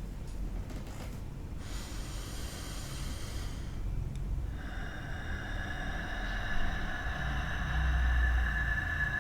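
Low rumble, then a steady ringing tone with several overtones that starts about four and a half seconds in and holds.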